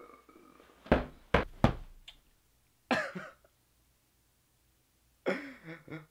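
A boy sobbing: three sharp, catching sobs about a second in, another a couple of seconds later, and a longer wavering cry near the end.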